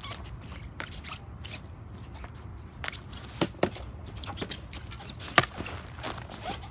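Sharp clacks of a hard field hockey ball being struck by a stick and deflecting off the goalkeeper's gear during a rebound drill. A few scattered knocks come in the second half, two in quick succession and then the loudest one about five and a half seconds in, over a steady low rumble.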